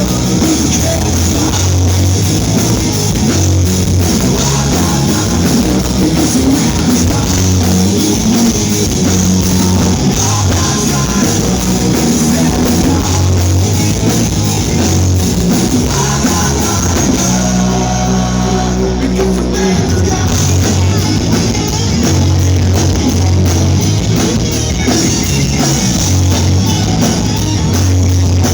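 Live hard rock band playing loud through a PA: distorted guitars, bass and drum kit, with singing. About two-thirds of the way in the drumming drops away for a couple of seconds under held low notes, then the full band comes back in.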